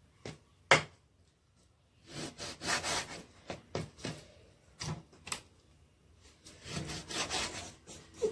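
Large kitchen knife slicing raw pork on a wooden cutting board: scraping, sawing strokes through the meat, with one sharp knock of the blade on the board about a second in.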